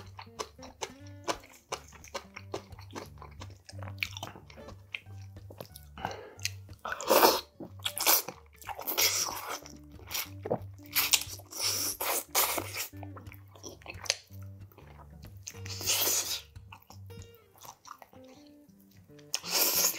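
Close-miked chewing and crunching of spicy steamed monkfish with bean sprouts, in loud bursts of bites and mouth noises, the loudest about seven seconds in. Soft background music plays underneath.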